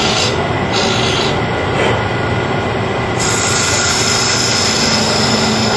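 Carbide-insert cutter of a mini turning tool cutting the inside of a spinning kiln-dried maple goblet on a wood lathe: a steady scraping rasp of the cutter on the wood, with a faint hum under it. The high hissing part of the cut drops away about half a second in and comes back after about three seconds, as the cutter's contact with the wood changes.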